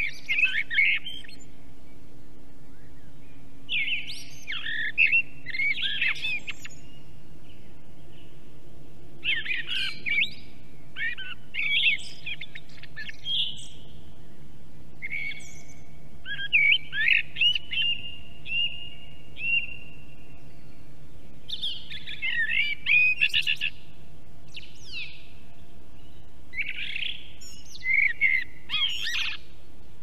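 A songbird singing short phrases of quick, warbled notes, one every few seconds, over a faint steady hum.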